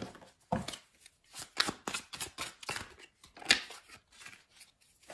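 A deck of tarot cards being shuffled by hand: an irregular run of quick snaps and taps of the cards.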